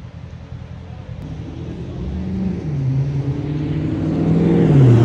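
A car engine approaching and passing close by: it grows steadily louder, and near the end its note drops in pitch as it goes past.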